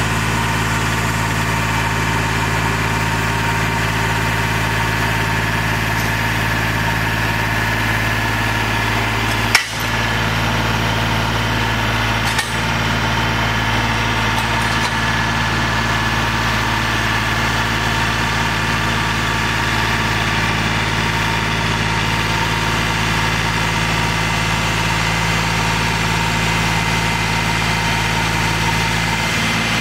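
John Deere 3035D compact tractor's three-cylinder diesel engine running steadily at a constant speed. Two short sharp clicks break in, about ten and about twelve and a half seconds in.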